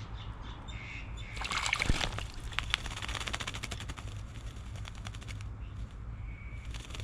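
Wattlebird bathing in a garden bird bath: a burst of splashing about a second and a half in, followed by a few seconds of quick small splashes and wing flicks as it shakes the water off.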